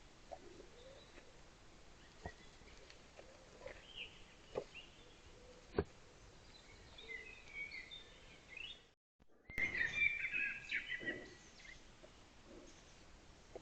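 Small birds chirping and singing over steady outdoor background noise, with a few faint sharp clicks. About nine seconds in the sound cuts out for a moment, and the chirping is busier after it.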